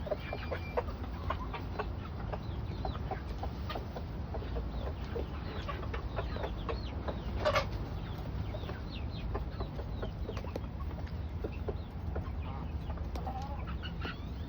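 Backyard chickens clucking and peeping in short, scattered calls, with one louder call about halfway through, over a steady low rumble.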